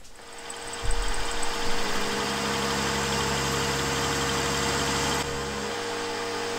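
Milling machine cutting a 6082-T6 aluminium conrod with an end mill: a steady motor whine, with a low cutting rumble that comes in about a second in and eases off shortly before the end.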